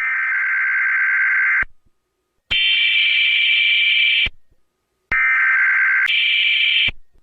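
Emergency Alert System SAME header: three harsh, screeching digital data bursts, each under two seconds, separated by short silences. The second burst, and the later part of the third, are pitched higher than the first, as if altered in editing.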